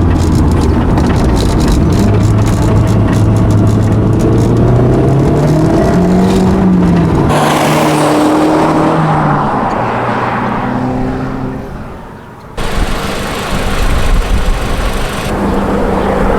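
Audi S3's turbocharged 1.8-litre four-cylinder (1.8T) running through a 3-inch downpipe and the stock muffler, revving up and settling back down. The sound changes abruptly twice, about 7 and 12 seconds in, and fades briefly just before the second change.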